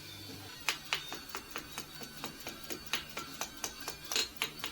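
Irregular sharp clicks and taps, several a second, some ringing briefly: hard, brittle old rubber tire being picked and pried off a band saw's metal wheel, starting about a second in.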